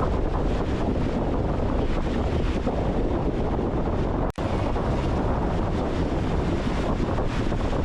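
Wind buffeting the microphone over the wash of beach surf, a steady rushing noise heaviest in the low end. It cuts out for an instant about four seconds in.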